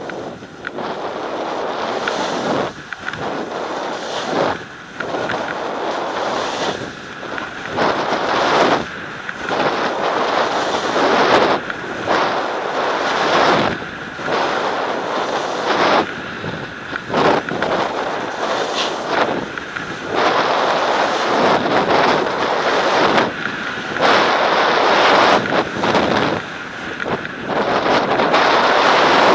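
Edges scraping and hissing over hard-packed snow at speed, surging and dropping away turn by turn, with wind rushing over the microphone.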